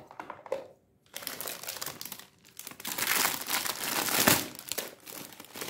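Clear plastic packaging crinkling and rustling as a bagged plastic toy mask is handled, starting about a second in and loudest in the middle.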